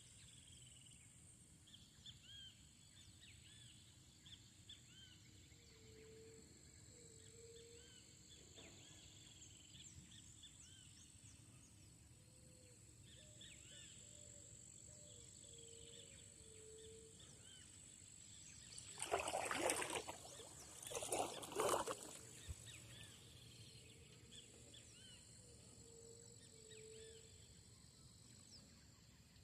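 Faint outdoor nature ambience: a steady high insect drone, scattered small bird chirps and short low calls, often in pairs. About two-thirds of the way through come two louder rushing noises about two seconds apart.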